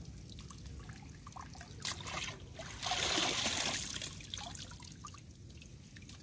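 Creek water draining and splashing out of a plastic mesh tube eel trap as it is lifted and tipped, with a few short splashes and then a louder rush of pouring water about three seconds in that fades to trickling.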